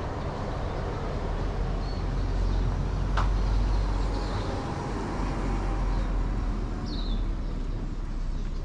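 Street ambience: the low rumble of a passing vehicle, swelling about three seconds in, with one sharp click around then and a few short bird chirps.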